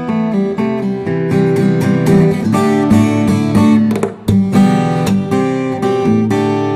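Background music: acoustic guitar strumming chords in a steady rhythm, with a brief break about four seconds in.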